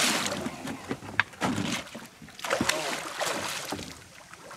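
A hooked Papuan spot-tail bass thrashing and splashing at the water's surface beside a boat. The biggest splash comes right at the start, followed by smaller, scattered splashes that die down near the end.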